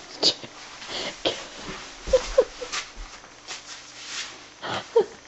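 Suppressed laughter: short breathy bursts with a few brief pitched squeaks of voice.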